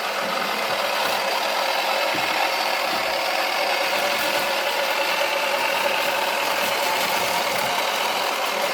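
Toy washing machine running, its small electric motor giving a steady, thin whir as the drum turns.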